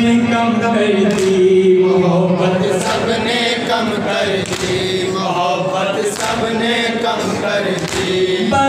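Noha: a group of men chanting a mourning lament in unison into microphones, with the chest-beating of matam heard as sharp slaps landing about every one and a half to two seconds.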